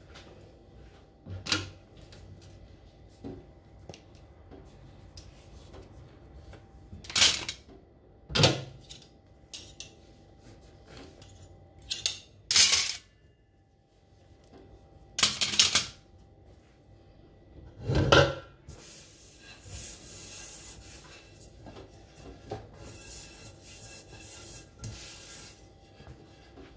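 Metal cookware and utensils clattering as washed dishes are handled and set down on a stainless-steel dish rack: about seven sharp clanks spread apart. Softer rubbing and light clicks follow near the end as a wok is wiped with a cloth.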